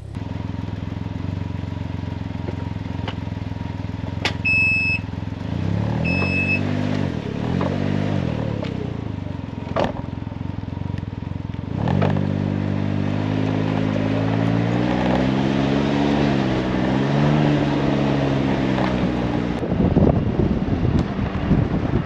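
Can-Am Ryker three-wheeler's engine idling, revved briefly twice, with two short electronic beeps about five seconds in. After a cut, the engine revs up and down as the trike pulls away, and wind and road noise take over near the end.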